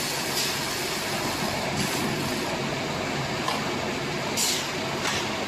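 Hay baling machine running steadily, with a few brief hissing bursts over its noise.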